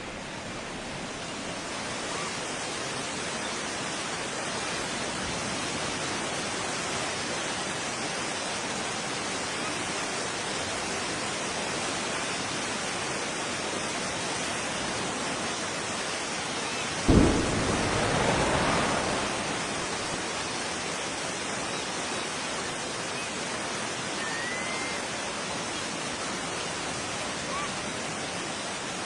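Steady rushing noise, with one sudden explosion boom about two-thirds of the way through that dies away over a couple of seconds.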